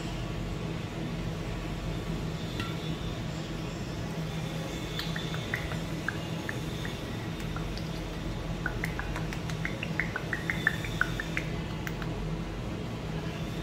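Thick sweet soy sauce dripping from an upturned bottle into a stainless-steel bowl of sliced beef: a few scattered small drips about five seconds in, then a quick run of drips near the end, over a steady low hum.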